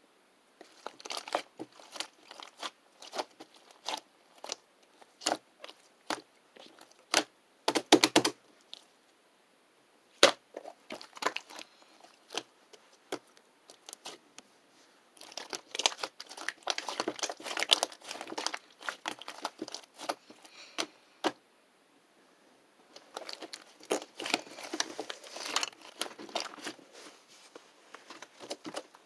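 Slime being squished and poked by hand, giving sharp pops and clicks, with denser runs of crackling about halfway through and again near the end.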